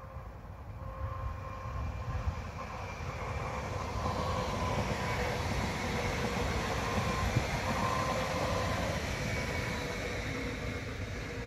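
An ETR 170 regional electric multiple unit passing by. The rumble of its wheels on the rails swells to a peak about two-thirds of the way through, then eases off as it moves away.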